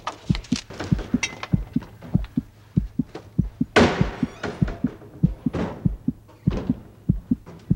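A rapid, low thumping pulse like a racing heartbeat, about three beats a second, with sharp ticks over it. A loud crashing swell comes about four seconds in and dies away over a second.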